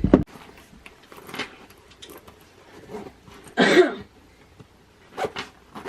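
Handling noises from a fabric camera pouch and its belt strap: scattered clicks and taps, with one louder rustle about two-thirds of the way through.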